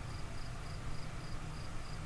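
Crickets chirping in an even rhythm, about three to four chirps a second, over a steady low rumble.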